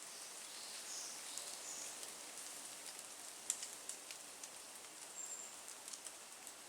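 Faint woodland ambience with a steady hiss, a few short high bird chirps in the first two seconds and a brief high whistle about five seconds in, and scattered light ticks throughout.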